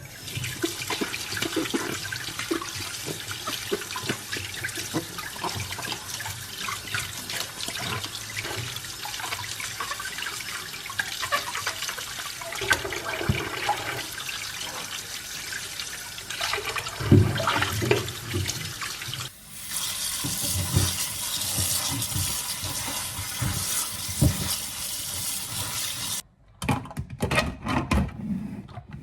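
Kitchen tap water running into a sink as fruit is washed under it, with knocks and rubbing of the fruit being handled. About twenty seconds in, the stream turns brighter and hissier; the water cuts off near the end, leaving a few clatters.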